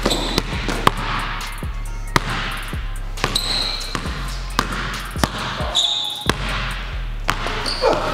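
A basketball being dribbled hard on a hardwood gym floor in quick, uneven bounces as the player changes speed and direction, with a few short high sneaker squeaks.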